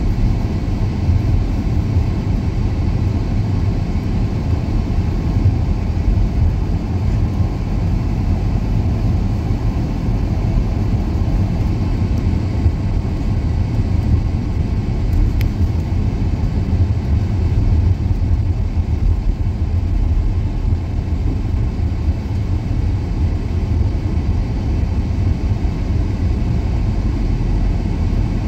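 Steady low rumble of a car driving, heard from inside the cabin: engine and tyre noise on a wet road, with no change in pace.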